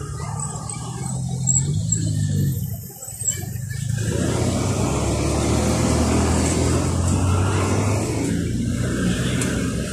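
Road traffic: car engines running, with a louder rush of a passing car from about four seconds in.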